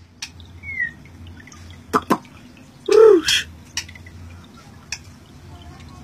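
Caged kacer (magpie-robin) giving scattered short, sharp call notes and clicks, with a brief whistled note near the start and one louder, harsher call about three seconds in.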